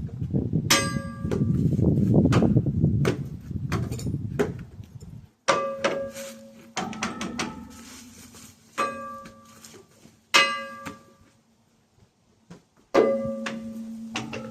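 A metal object being struck about six times, a second or two apart; each clang rings on with a clear tone. A rough rushing noise covers the first five seconds.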